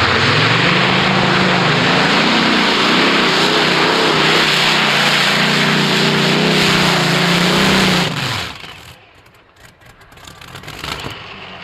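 Pulling tractor's Rolls-Royce engines at full throttle during a pull. The run is very loud, its pitch wavering up and down. About eight seconds in it cuts off and the sound falls away.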